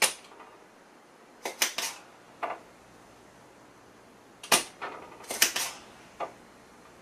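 Spring-loaded solder sucker (desoldering pump) being fired and re-cocked, clearing solder from a circuit board's holes: sharp snapping clicks, one at the start and two quick clusters about 1.5 s and 4.5 s in.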